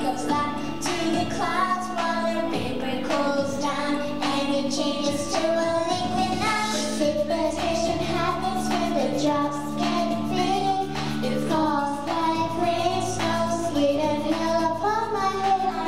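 A group of young children singing a song together over instrumental accompaniment.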